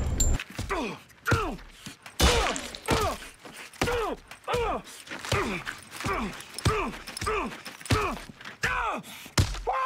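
A man grunting over and over, each short grunt starting with a thud and sliding down in pitch. They repeat at an even pace of about one every three-quarters of a second, a dozen or so in all.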